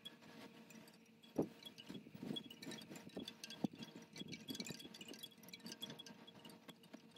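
Bare hands and feet knocking and rubbing on a yoga mat as the body moves between poses, with two sharper knocks a little over a second and about three and a half seconds in. A faint steady hum runs underneath.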